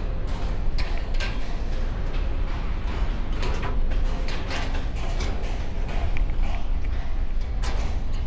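Climbing a construction crane's steel structure: irregular metallic clanks, taps and creaks of hands and boots on the ladder, over a steady low wind rumble on the microphone.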